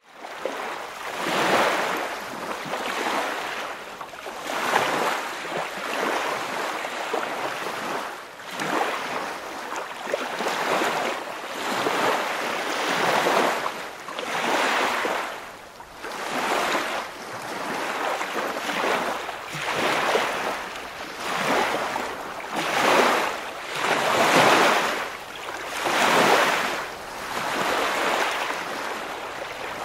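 Waves washing in: a rushing hiss that swells and falls back every second and a half to two seconds.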